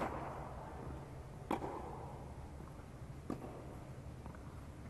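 Tennis rally: sharp strikes of racket on ball at intervals of roughly one and a half to two seconds, each followed by a short echo under the dome, over a low steady hum.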